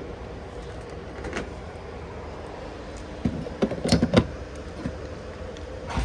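A petrol pump nozzle clattering as it is handled and pushed into a car's filler neck: a cluster of sharp knocks about three to four seconds in, over a steady low hum.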